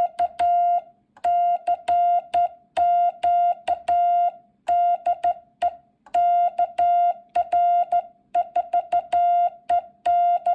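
Morse code sent by hand on a cootie (sideswiper) key: a steady beep keyed on and off in short dots and longer dashes, grouped into characters with brief gaps, each element opening and closing with a sharp click.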